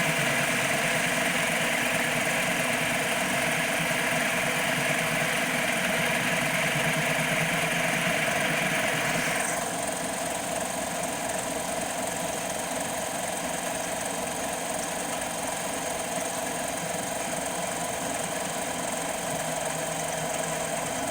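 CNC mini lathe running steadily with the hiss of the tool cutting the turned ball over the motor hum. The cutting hiss stops abruptly about halfway through while the machine keeps running.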